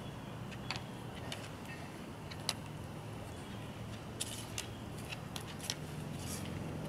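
Dog's claws clicking on a tiled floor as it walks about, sharp irregular clicks over a low steady hum.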